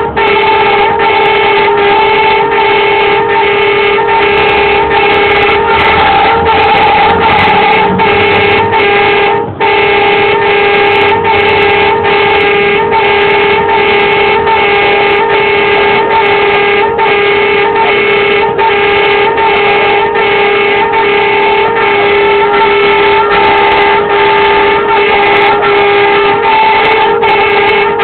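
Tow truck's warning siren sounding continuously as it forces a path through stopped traffic: a loud, steady pitched tone whose upper part pulses about one and a half times a second, with a brief break about nine and a half seconds in.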